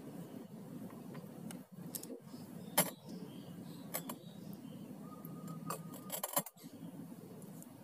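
A few short clicks and taps, the loudest about three seconds in, over a low steady hum, with a faint thin tone held for about a second past the middle.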